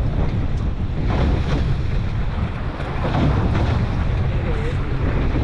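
Strong wind buffeting the microphone on an open fishing boat, a steady heavy rumble, with choppy water against the hull underneath.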